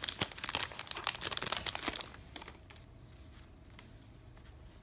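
Crinkling of a baseball card pack wrapper being handled and torn, a dense crackle for about two seconds that then dies down to a few faint ticks.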